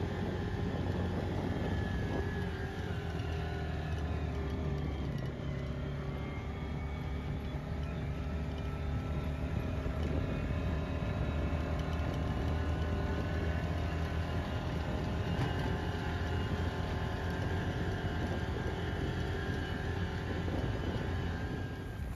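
Motor vehicle engine running steadily under way on a rough dirt track, heard from on board.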